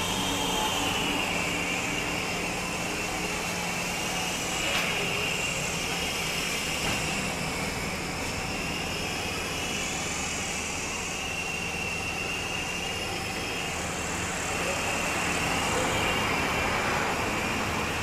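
Small electric motors of a homemade remote-control toy helicopter whining steadily, the pitch wavering slowly up and down as the rotor speed changes.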